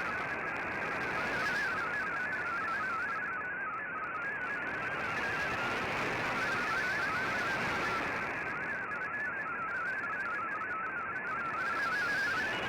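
MFSK digital data signal received on shortwave: a narrow cluster of rapidly stepping, warbling tones running steadily over radio static hiss.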